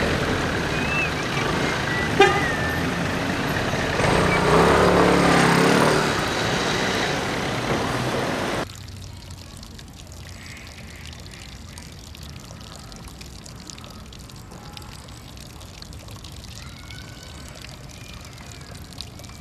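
Steady city street traffic, with one sharp knock about two seconds in and a heavy vehicle passing loudly for a couple of seconds. Then the sound drops suddenly to a faint, steady trickle of fountain water running into a plastic bucket.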